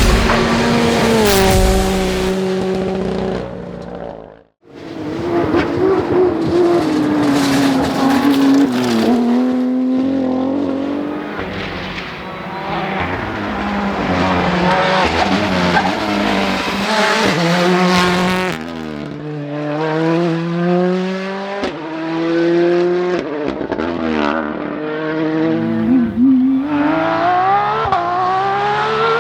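Rally cars at full attack, a series of clips cut together: engines revving hard, pitch climbing and dropping sharply with each gearshift, with tyre noise. One short cut about four and a half seconds in drops the sound out for an instant.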